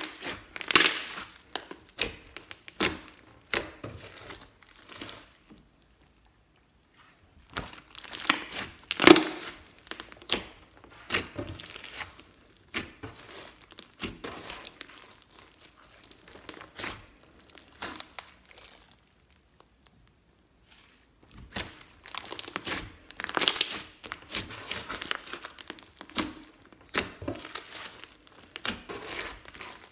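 Hands kneading, stretching and pressing a large lump of thick slime studded with small beads and glitter: irregular sticky squishes and short sharp pops as air pockets in it are squeezed, with two brief pauses.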